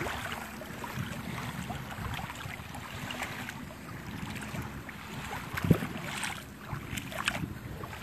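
Wind on the microphone over small waves lapping at the water's edge, with scattered soft clicks and one louder thump about six seconds in.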